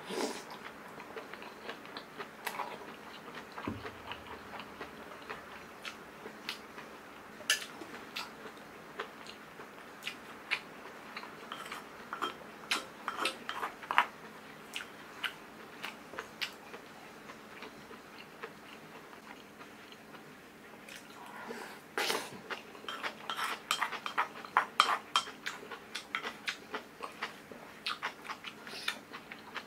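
Eating sounds: chewing mouthfuls of kimchi stew and rice, with chopsticks and a wooden spoon clicking and scraping against a small bowl. The clicks come scattered at first, then thick and fast over the last several seconds.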